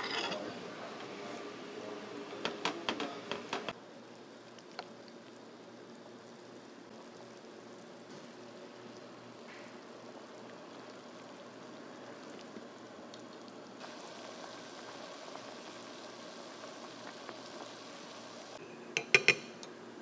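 Kitchen handling sounds: a quick run of clinks and knocks from dishes and utensils, then a long steady hiss from a pot of broth at the boil, with a few light taps and a short burst of clinks near the end.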